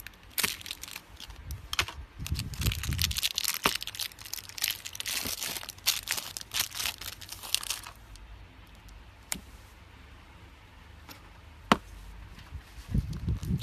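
Slime being squeezed and stretched by hand, giving dense crackling and clicking for about eight seconds, then only scattered clicks, with a few low thuds of handling.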